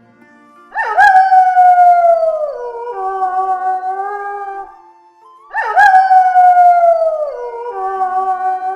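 A wolf howling, twice: each long howl rises sharply, slides slowly down in pitch, then drops to a lower held note before fading. Faint background music runs underneath.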